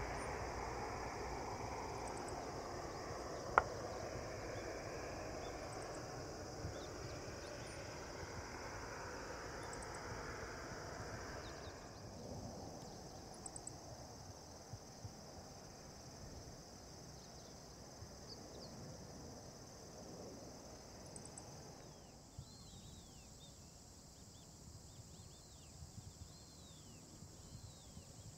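Jet engine noise of a Boeing 737-800 airliner, a broad rumble that fades away over the first dozen seconds, under steady high insect chirring. A single sharp click comes a few seconds in, and short chirps come in near the end.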